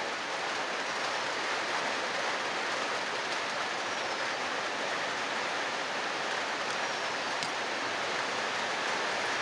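A steady, even rushing noise with no change in it. A few faint short falling whistles are heard over it, and a faint click comes near the end.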